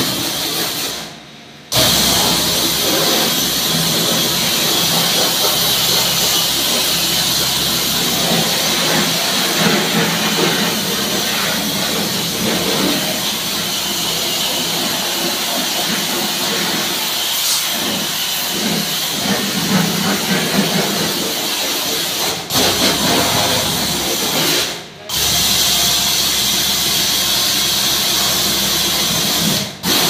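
Pressure washer running and spraying a jet of water onto a window air conditioner's coils and chassis: a steady hiss of spray over the pump's hum. The spray cuts out briefly a few times.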